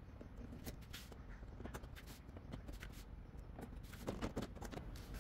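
Faint, scattered clicks and rustling as a car's plastic cover and its trim clips are handled and pulled off, with a few louder knocks about four seconds in.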